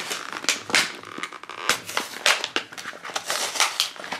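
Small cardboard blind box and its plastic capsule being opened by hand: a quick, irregular run of sharp clicks, crackles and rustles of card and plastic.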